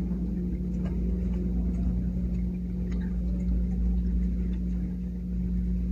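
Steady low electrical hum in the background, with faint scattered clicks and light rubbing as small fan parts are handled and wiped clean.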